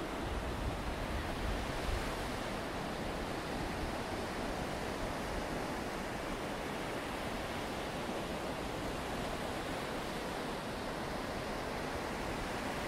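Steady rushing of surf washing onto the shore, with a low wind rumble on the microphone in the first couple of seconds.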